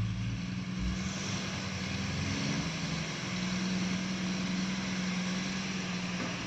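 A heavy vehicle's diesel engine running steadily at an even speed, with a steady hiss over it.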